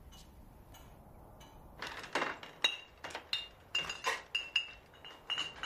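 Crockery clinking: cups, saucers and a spoon knocked together in a quick run of light clinks, each with a short ring, starting about two seconds in, as coffee is being made. Faint soft taps come before them.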